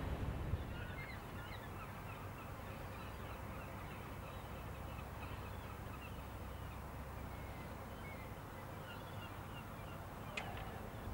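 Many short bird calls, scattered and overlapping, over a steady low rumble, with a single sharp click near the end.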